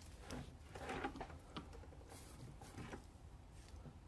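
Faint taps, clicks and rustles of small tools being handled on a workbench, over a low steady background hum.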